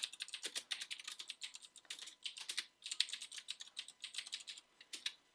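Typing on a computer keyboard: quick, uneven runs of keystrokes with brief gaps between them.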